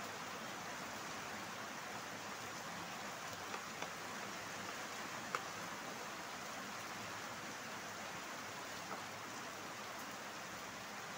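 Steady hiss with a few light clicks from the push buttons of a bicycle laser tail light being pressed, the sharpest about five seconds in.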